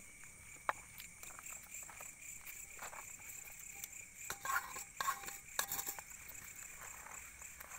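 Steady chirring of night insects such as crickets, under scattered clicks and scrapes of a spoon against a metal cooking pot as cooked rice is scraped out, most of them about midway through.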